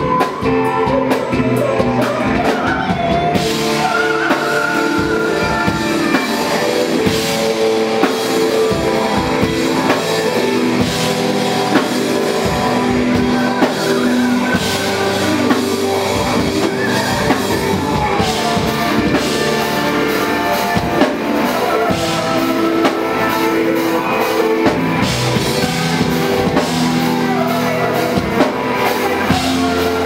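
A live rock band playing loudly, with a drum kit, electric bass and electric guitar and a male lead vocal singing over them.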